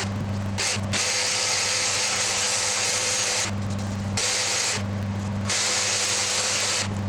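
Random orbital sander running against a curved utile wood surface: a steady motor whine with grainy abrasive hiss. The hiss drops out briefly about half a second in, around three and a half seconds in and around five seconds in, leaving a low steady hum each time.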